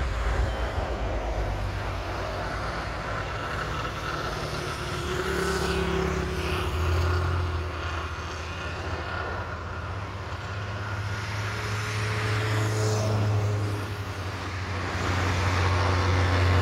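Road traffic: vehicles passing one after another over a low, steady rumble, with swells as individual vehicles go by at about 5–7 s and 12–13 s.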